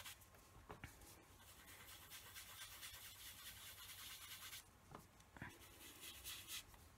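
Faint, scratchy rubbing of a small piece of dish sponge dabbing ink onto cardstock around a stamped image, with a few soft clicks.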